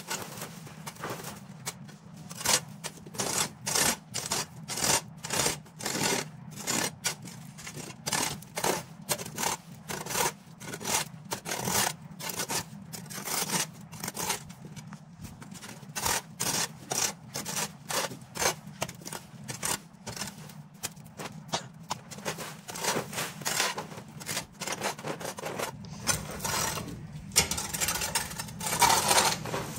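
Repeated scraping strokes of a hand tool working across the ground, about two a second, with a steady low hum underneath.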